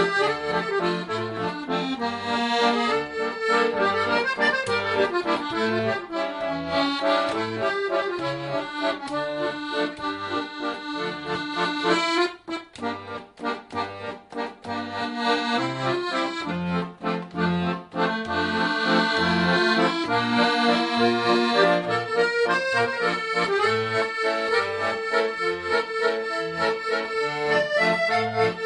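Accordion music with a regular bouncing bass line, thinning out briefly about halfway through before the full sound returns.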